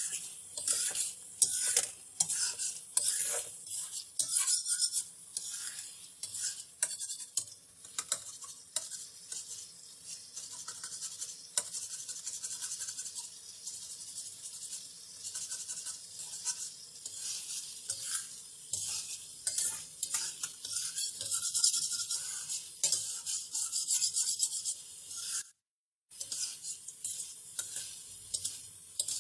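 Chicken pieces sizzling in oil and tomato in a metal karahi (wok) while a flat metal spatula stirs and scrapes against the pan, with frequent sharp scraping clacks over the steady sizzle. This is the bhuna stage, the frying-down of the karahi. The sound cuts out for a moment near the end.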